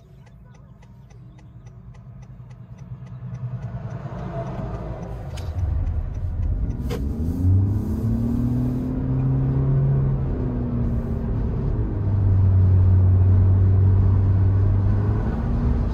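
Car pulling away from a stop, heard from inside the 2022 Honda Insight hybrid with the sunroof open: engine and road noise grow over the first several seconds into a steady low drone at cruising speed. A single sharp click about seven seconds in.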